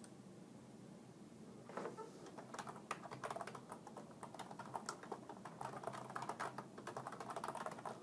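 Faint typing on a computer keyboard: a quick, uneven run of key clicks that starts about two seconds in and keeps going.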